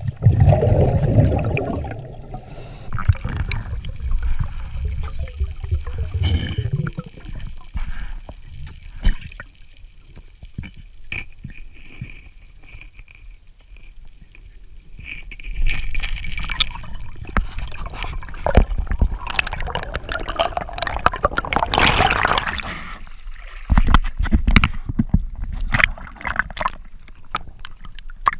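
Water gurgling and sloshing around an underwater camera, with bubbling surges and splashes as the diver moves through the water.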